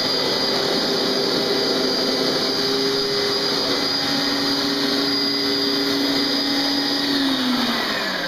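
Hoover SteamVac carpet cleaner running steadily, its motor whining and sucking dirty water up out of the carpet. Near the end it is switched off and the pitch falls as the motor winds down.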